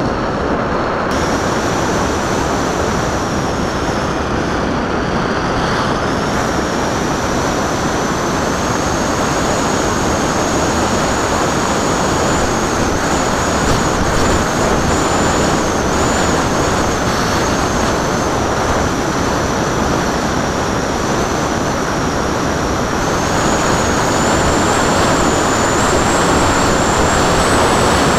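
Wind rushing over the onboard camera of a Popwing RC flying wing in flight, with the high, steady whine of its electric motor and propeller. The whine steps up in pitch about six seconds in and again near the end as the throttle is opened.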